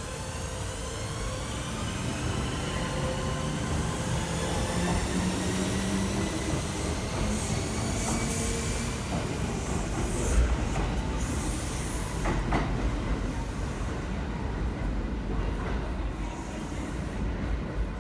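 Kintetsu 2680 series electric train pulling away, its motor whine rising steadily in pitch as it gathers speed over a low rumble. A few sharp wheel knocks come about ten and twelve seconds in.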